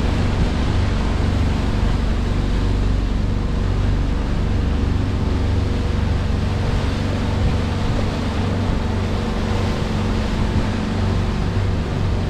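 Boat engine running at a steady drone while under way, over a steady rushing of water and wind.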